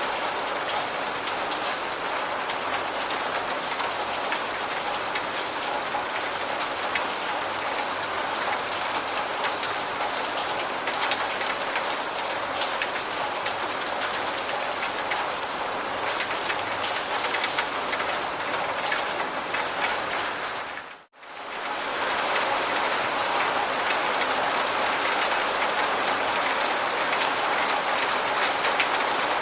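Steady rain falling, an even hiss with many small drop ticks. About two-thirds of the way through it fades out almost to silence for a moment, then comes straight back.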